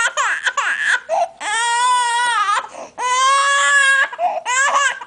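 A four-and-a-half-month-old baby crying hard: two long, high wails of over a second each in the middle, with shorter cries that slide in pitch at the start and near the end.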